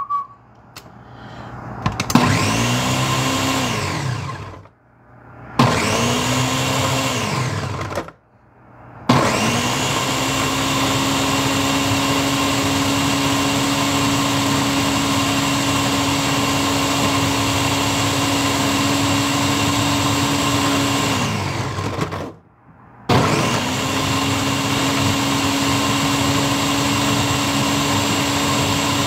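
Countertop blender motor crushing watermelon chunks into juice: two short pulses, each spinning up and winding down, then a long steady run. The long run winds down about twenty-one seconds in and starts again a couple of seconds later.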